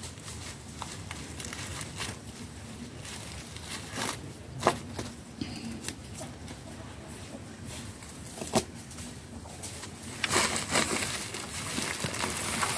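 Compost sacks being handled and sewn shut by hand: a few sharp, isolated knocks and, near the end, a few seconds of rustling of the sacks.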